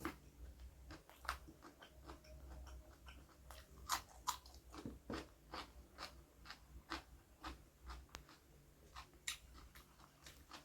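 A person chewing and biting into crunchy food, with irregular crisp crunches and mouth clicks.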